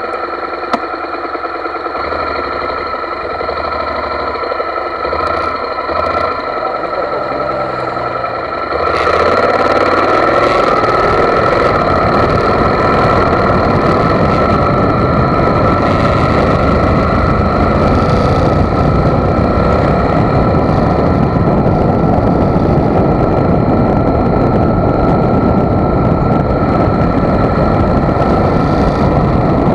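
Motorcycle riding along a road, heard from the bike: engine running with a steady whine over a rush of wind and road noise. About nine seconds in the rushing noise jumps suddenly louder and stays that way.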